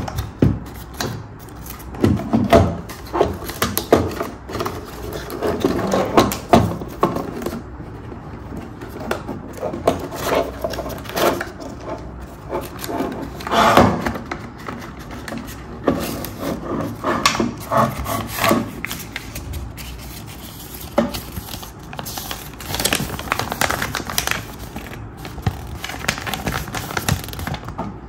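Hard plastic playset pieces handled and pressed together: irregular clicks, knocks and scrapes of plastic on plastic, with cardboard packing rubbing as it is pulled out.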